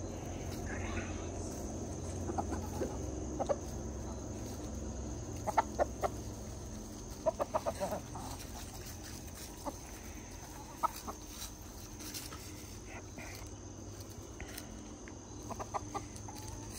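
Backyard chickens clucking in short, scattered calls, some coming in quick runs of three or four.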